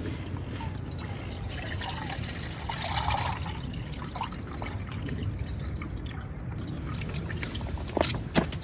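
Water pouring and trickling, with two light knocks near the end.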